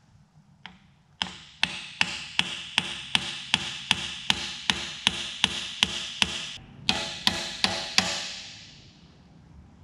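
A mallet striking a metal bearing-race driver to drive a new seal into a Nissan Patrol GU front axle housing: a light tap, then a steady run of blows at about three a second, a short pause, and five more. Each blow rings with a metallic tone that fades away after the last.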